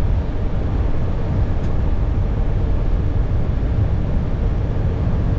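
Steady rumble of a Boeing 737 heard from inside the cockpit, deep and even, with a faint short click about a second and a half in.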